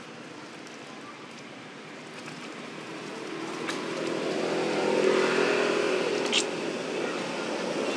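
A motor engine running, growing steadily louder from about two seconds in and holding near its loudest through the second half. Near the end a single brief, sharp high-pitched sound cuts in.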